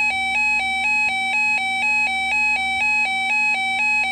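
Electronic emergency alert tone on NOAA Weather Radio, switching back and forth between two pitches a few times a second. It signals an Emergency Alert System message, here a severe thunderstorm watch that is read out next.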